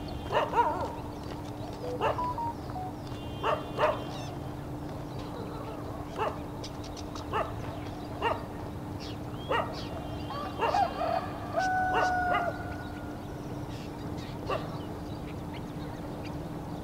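About a dozen short animal calls at irregular intervals, with a few brief whistled notes near the middle, over a steady low hum.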